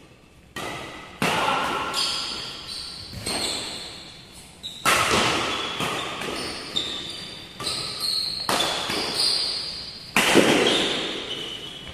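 Badminton rackets striking a shuttlecock in a doubles rally: sharp hits every second or so, each ringing out in the hall's echo, the loudest about ten seconds in. Short high squeaks from players' shoes on the court come between the hits.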